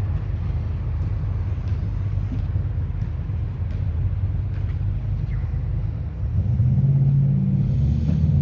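Low rumble of road traffic, growing louder about six seconds in as a steady engine hum comes in.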